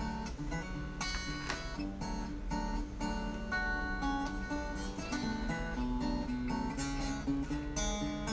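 Background music: a strummed and plucked acoustic guitar arrangement.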